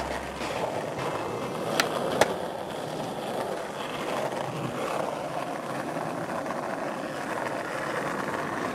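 Skateboard wheels rolling over stone paving tiles as the rider pushes along, with two sharp clacks close together about two seconds in.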